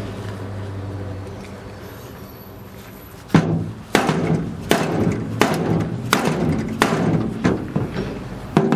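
About eight hammer blows, a bit faster than one a second, driving a new upper ball joint into a truck's upper control arm until it is seated. Each strike is sharp with a short metallic ring. A low hum fades out before the first blow.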